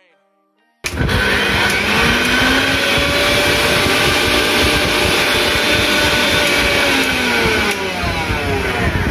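Mixer grinder motor switched on for a test run after repair, running unloaded with no jar fitted. It starts abruptly about a second in, spins up with a rising whine, runs steadily at speed, and its pitch drops near the end.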